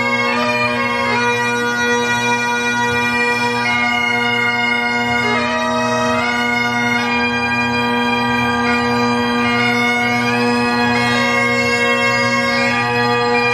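Bagpipes playing a tune over their steady drone.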